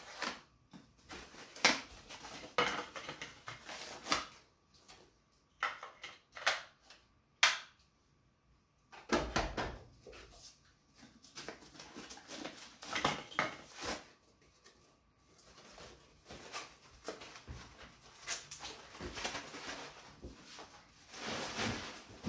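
Hard plastic knocks and clicks as empty filament spools are handled and set into the spool bays of a Bambu AMS multi-material unit, a string of separate sharp clacks in the first half. Later, softer rustling of plastic packaging.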